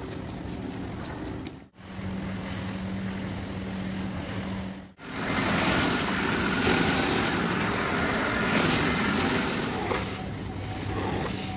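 A machine's steady low hum in short edited clips, then a loud, even hiss from about five seconds in.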